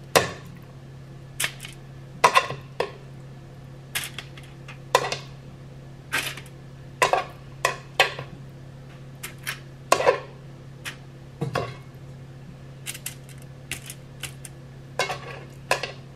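Irregular light clinks, taps and crinkles as seasoned salmon bites are set one by one onto a foil-lined baking sheet, over a steady low hum.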